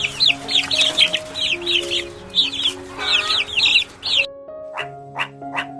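Baby chicks cheeping: many rapid, overlapping high peeps, each falling in pitch, over background music. About four seconds in it cuts off abruptly, and a run of short, evenly spaced calls follows, about two and a half a second.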